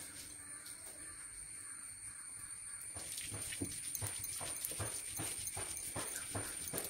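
Stone roller of a granite grinding stone crushing green peppercorns, shallots and chillies against the slab: quiet rubbing at first, then from about three seconds in a steady run of stone-on-stone knocks, about three a second.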